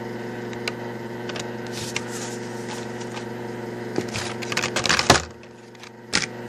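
Hot Wheels blister-card packages being handled: scattered light plastic clicks and crinkles, with a quick cluster about four to five seconds in. Under them runs a steady electrical hum.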